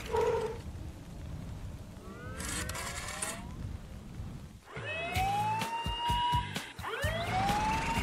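Cartoon siren sound effect: a tone that rises and then holds, sounding twice in a row from about five seconds in, over light background music. A short swooshing rise comes a couple of seconds earlier.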